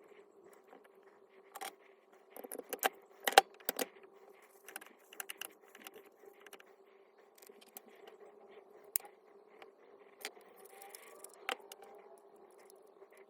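Small metal parts and hand tools clinking and scraping as they are handled, with a cluster of sharp clicks about two to four seconds in and a few scattered clicks later, over a steady faint hum.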